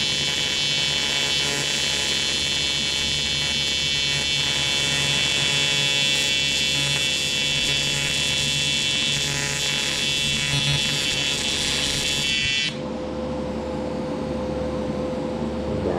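AC TIG welding arc on aluminum from a Primeweld 225x: a steady, harsh electric buzz made of many stacked tones. It cuts off suddenly about three seconds before the end as the arc is broken, leaving a steady low hum.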